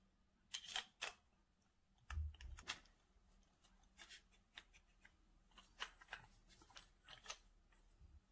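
Quiet handling noises from a camera boom arm being assembled: scattered small clicks and taps as a threaded hook screw is fitted into the end of the arm's tube, with a soft low thump about two seconds in.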